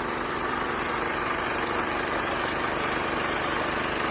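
Snow blower engine running steadily.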